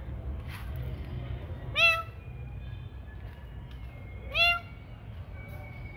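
A cat meowing twice: two short, loud meows rising in pitch, about two and a half seconds apart, over a steady low hum.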